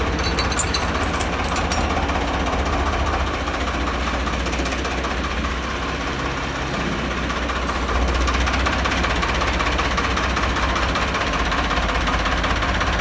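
Farmtrac 60 tractor's diesel engine running steadily, getting a little louder about eight seconds in. A few light clinks in the first two seconds.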